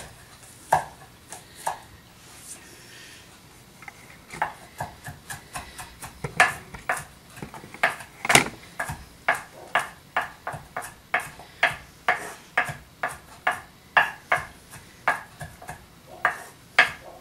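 Chef's knife chopping garlic on an end-grain wooden cutting board: a few scattered knocks, then from about four seconds in a steady run of about two knife strikes a second.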